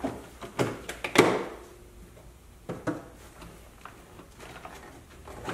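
Several knocks and thumps as the rubber floor mat and plastic trim of a golf cart are worked loose and handled. The loudest knock comes about a second in, followed by a short ringing.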